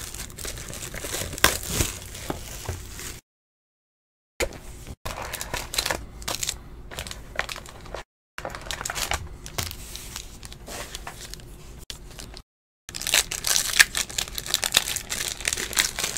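Foil trading-card pack wrappers crinkling and a cardboard box being handled as the packs are taken out, with a foil pack being torn open near the end, where the crinkling gets louder. The audio cuts out to silence a few times, once for about a second.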